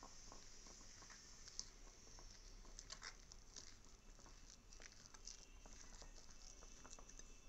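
Faint, irregular scraping and clicking of a metal spoon stirring wheat flour into jaggery syrup in a bowl.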